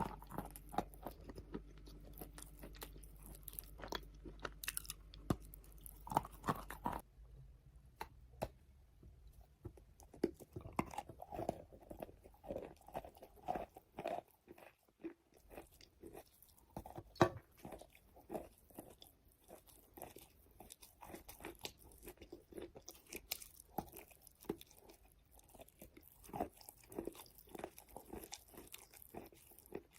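Close-miked biting and chewing of wet chalk: a run of irregular soft crunches, several to the second, with the occasional sharper bite.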